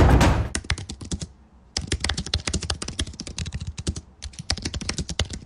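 Fast typing on a computer keyboard: quick runs of key clicks, broken by two short pauses, as intro music fades out at the start.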